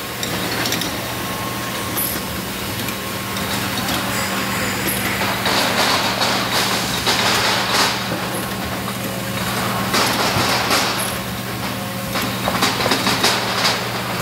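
Automatic bottle-labeling line running: a steady low machine hum under a constant mechanical whir, with louder stretches of rattling clatter about halfway through and again near the end.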